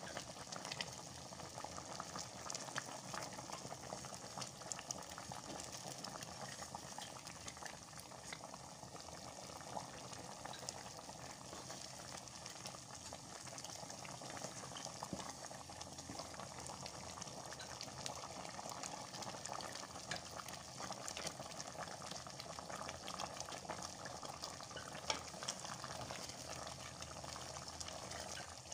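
Palm-oil soup boiling in a pot, bubbling and popping steadily, stirred with a wooden spoon.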